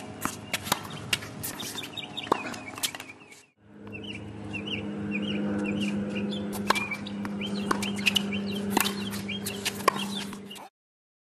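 Outdoor tennis play: sharp knocks of racquet strikes and court footfalls, with birds chirping over and over. The sound drops out briefly about three and a half seconds in, comes back with a steady low hum underneath, and cuts off abruptly shortly before the end.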